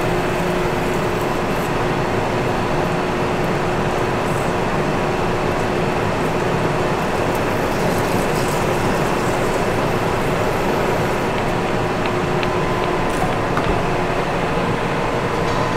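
Large manual metal lathe running steadily with coolant pouring over the work, as a center drill in the tailstock chuck cuts into the end face of a 1045 steel bar. A constant mechanical hum with a few held tones over it.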